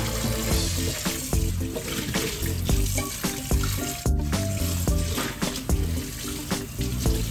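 Kitchen tap running onto a non-stick frying pan as it is rinsed and rubbed by hand in a stainless steel sink, with background music.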